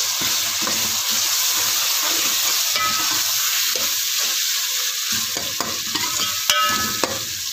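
Shredded boiled chicken frying in ghee and masala in a metal pot, sizzling steadily while a steel ladle stirs it, with scraping and knocking of the ladle against the pot. A brief metallic ring sounds about three seconds in and again near the end.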